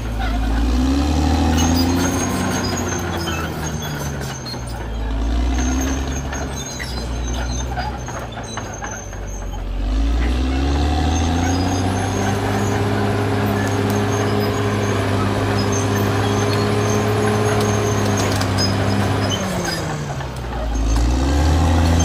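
Caterpillar D6R XL bulldozer's diesel engine, revving up and dropping back several times, and held at high revs for several seconds in the second half.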